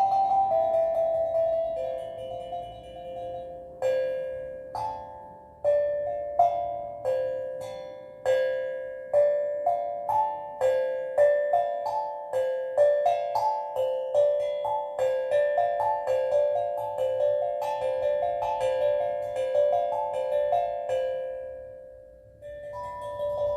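Steel drum played slowly, one struck note at a time, each ringing and decaying into the next in a gentle, meandering melody. A little before the end the notes die away almost completely, then a fresh note rings out.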